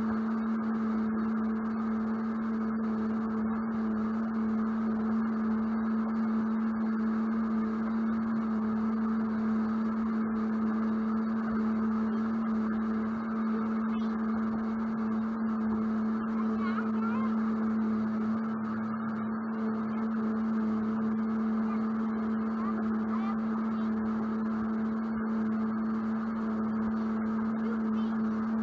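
Sea-Doo jet boat's engine running steadily under way, a constant droning hum, with water rushing along the hull beneath it.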